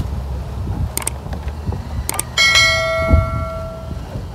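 Metal clinks from galvanized steel pipe and fittings being handled: two light clicks, then a struck piece of pipe rings out like a bell and fades away over about a second and a half.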